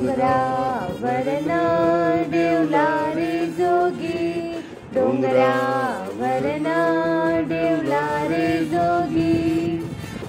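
Background music: a sung melody of held, wavering notes over a steady low accompaniment, with a short pause between phrases near the middle.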